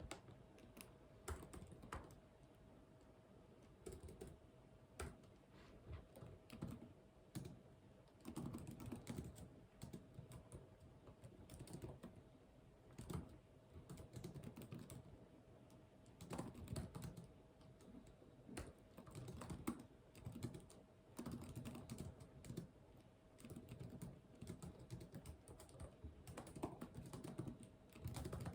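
Typing on a computer keyboard in quick bursts of keystrokes separated by short pauses, faint, over a steady low hum.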